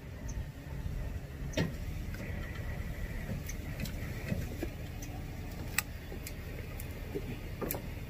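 Bucket truck's engine running steadily with a low rumble, while a few sharp clicks and knocks sound now and then.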